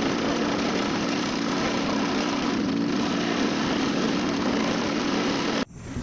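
Mini excavator's diesel engine and hydraulics running steadily, then cutting off abruptly about five and a half seconds in.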